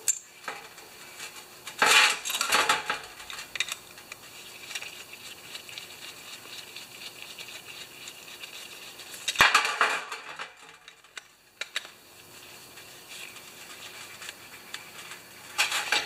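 Small metal carburetor parts and a screwdriver clinking and knocking against a steel drip tray while a generator carburetor is reassembled by hand. A cluster of sharp clatters comes about two seconds in and a single sharper knock about nine and a half seconds in, with light scattered clicks between them.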